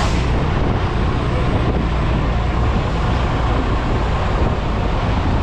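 Heavy tow truck's diesel engine running steadily at low speed, a constant low engine sound with no distinct events.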